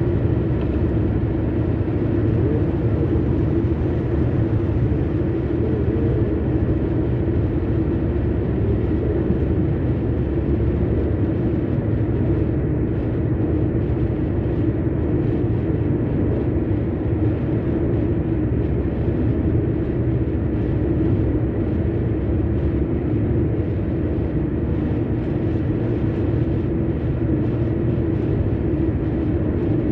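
Steady road and engine noise of a car driving at highway speed, heard from inside the cabin: a continuous low rumble with a constant hum.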